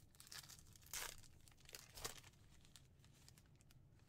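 Wrapper of a trading card pack being torn open and crinkled by hand: a few short, faint rips and rustles, the loudest about a second in.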